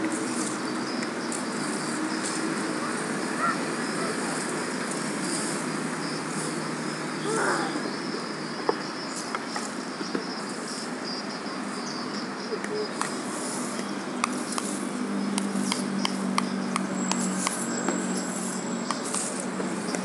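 Stiff twig broom scraping over a paved floor as it sweeps fallen leaves, over a steady background of insects chirping. Sharp clicks are scattered through the second half.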